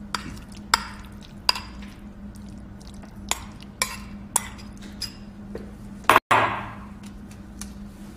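Wooden spoon knocking and scraping against a ceramic bowl as chicken filling is scraped out onto dough: a string of sharp clinks, about one every half second to second, with a louder scrape about six seconds in.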